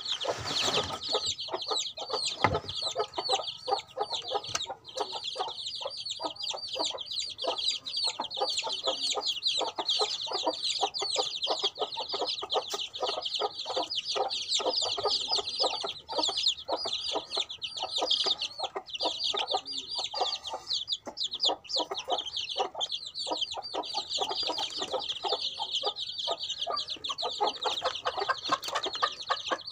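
Many baby chicks peeping at once: a dense, continuous chorus of short, high, falling cheeps.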